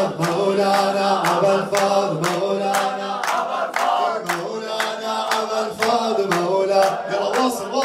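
A male radood singing an Arabic Shia devotional chant, with a steady percussive beat of about two strikes a second beneath the voice.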